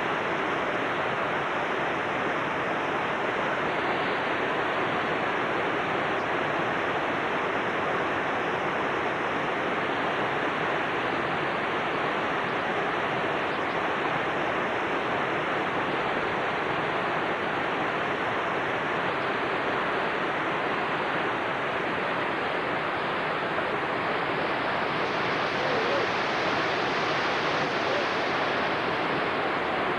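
Whitewater rapids rushing steadily over boulders and ledge drops, a continuous loud roar of churning water.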